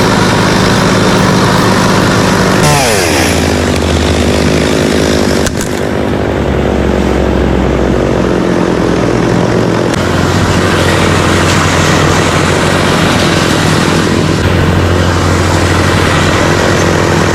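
Chainsaw engine running at high revs; its pitch falls sharply about three seconds in, and its note shifts again around five and ten seconds.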